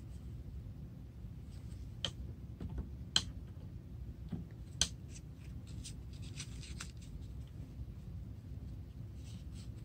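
Watercolour brush being handled: a few sharp clicks, the clearest about 2, 3 and 5 seconds in, and short scratchy strokes of brush against palette and paper, over a low steady hum.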